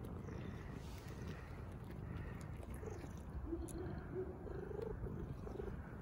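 Ginger cat eating dry kibble, with a low purring rumble and scattered crunching clicks of chewing. A few short, low warbling calls come in the second half.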